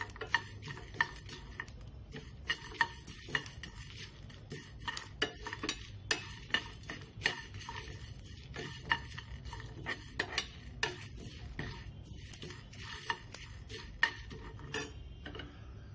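Whole coriander and cumin seeds, black peppercorns, a cinnamon stick and dried red chillies being dry roasted in a nonstick pan and stirred with a wooden spatula. The seeds scrape and rattle, and there are frequent irregular clicks of the spatula against the pan over a steady low hum. The clicks stop near the end.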